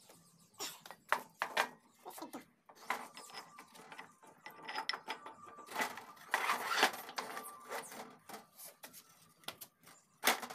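Irregular metal clicks, knocks and scrapes as the gears of a toka chaff-cutter gearbox are handled and slid onto their shafts, with a busier stretch of scraping just past the middle and one sharp click near the end.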